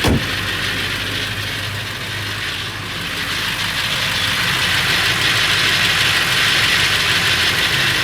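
Ford 7.3L Powerstroke V8 turbo diesel idling with a rattle, which the owner wonders may be a cracked flexplate or something in the engine. A brief low thump right at the start, and the engine gets a little louder from about halfway through.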